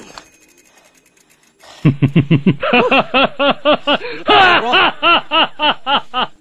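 A long burst of laughter, a rapid run of 'ha-ha-ha' syllables starting about two seconds in and stopping abruptly near the end. It is a band-limited laughter sound effect dubbed over the footage.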